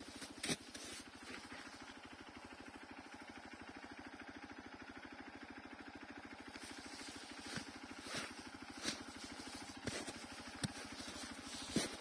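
Dirt bike engine running at low revs with a fast, even pulse, and several short knocks near the middle and end.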